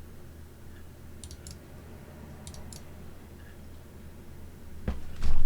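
Computer mouse clicking in two quick pairs, about a second apart, over a steady low hum, then a loud low thump near the end.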